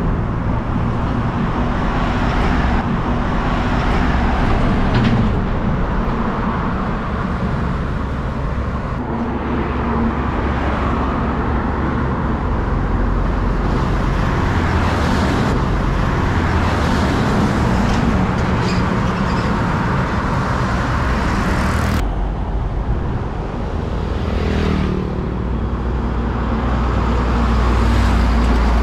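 Highway traffic passing close by: diesel semi-trucks and cars going past with continuous engine and tyre noise. The deep engine sound is strongest near the end, as a bulk cement tanker truck passes.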